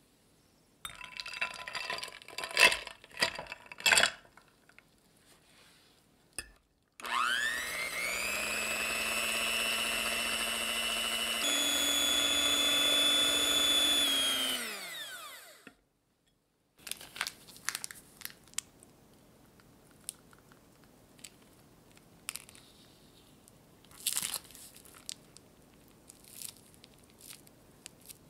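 Electric hand mixer whipping heavy cream in a glass bowl: the motor spins up, runs steadily, steps up to a higher speed about halfway through, then winds down. Before it, a few clinks of glass and ice in the ice-bath bowl; after it, scattered light taps and scrapes.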